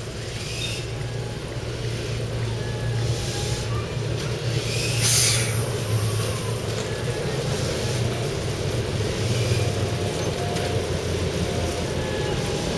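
Class 08 diesel shunter's English Electric six-cylinder engine running with a steady low throb as the locomotive moves slowly forward, with a brief hiss about five seconds in.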